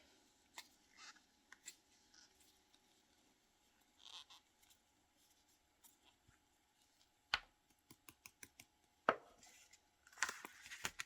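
Quiet handling of craft supplies at a work table: scattered small clicks and taps with faint scratchy rustles, a sharper tap about seven seconds in and again about nine seconds in, and a short burst of scratchy rustling near the end.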